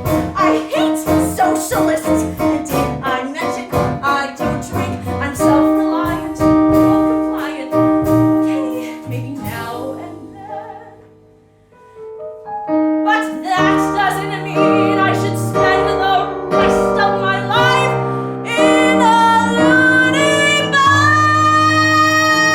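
Piano accompaniment playing repeated chords, dying away to a brief near-silence about halfway through before starting again; near the end a female voice joins on a long held note with vibrato.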